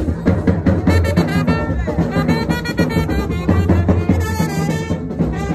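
Loud band music with drums and horns playing a steady beat.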